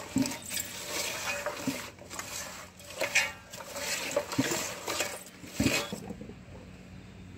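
A hand mixing marinated chicken pieces in a large metal pot, with irregular clinks of bangles on the wrist and soft knocks against the pot. The handling stops about six seconds in.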